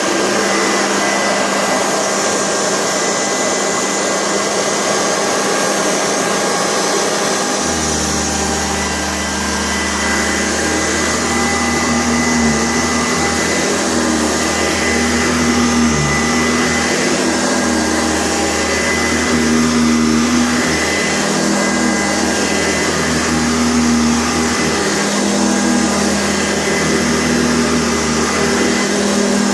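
Sanitaire SC684 upright vacuum cleaner running steadily with a high motor whine; a deeper hum joins about a quarter of the way in. Its motor arcs a little, which the owner says makes it sound bad without hurting performance.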